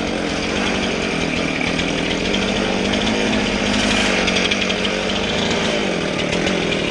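Gas chainsaw running steadily at speed, its engine pitch dipping briefly about five and a half seconds in.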